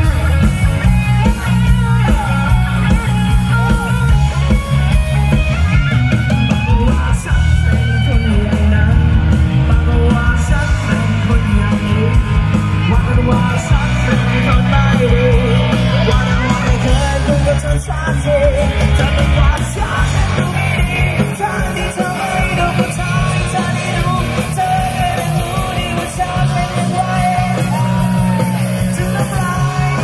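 Live rock band with a singer playing over a PA, with a loud, steady electric bass line. The bass is carried by an AKG WMS 45 wireless system and plays on without dropouts.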